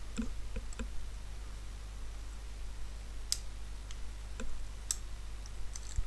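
Scattered small metal clicks from a freshly picked Abloy Easy disc-detainer cylinder lock and its pick being handled: a few faint ticks in the first second, then two sharper clicks a little past halfway and near the end.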